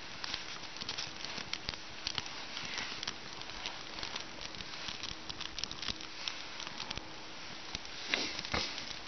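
Small just-lit fire of birch-bark and paper kindling crackling under wet, snow-covered logs, with quick irregular snaps. A louder brief rustle comes near the end.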